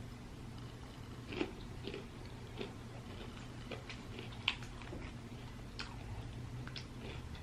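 Close-miked chewing: soft, wet mouth clicks and smacks about once a second, over a low steady hum.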